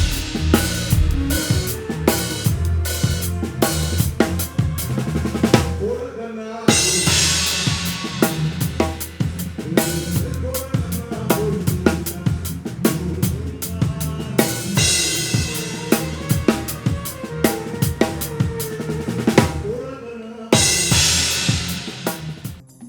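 Drum kit playing a steady groove, with kick, snare and cymbals, heard through the overhead microphones as they are being equalised. A low bass line runs underneath. The playback breaks off briefly about six seconds in and again near the end, then resumes.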